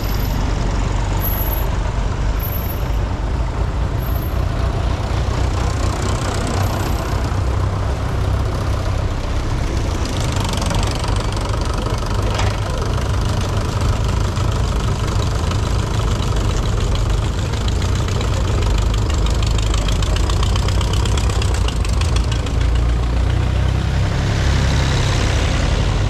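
Tractor engines running as a line of vintage tractors drives past one after another, a steady low engine sound that grows a little louder near the end as a tractor passes close.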